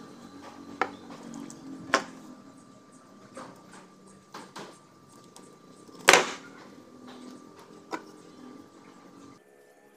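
Clicks and knocks from hands working a fishing rod with fishing pliers: about seven separate sharp ticks, the loudest about six seconds in, over faint handling sounds.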